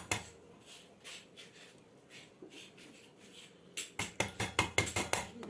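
Hand tools and metal parts clicking and tapping during a chainsaw strip-down: scattered light ticks, then a quick run of about ten sharp metallic clicks near the end.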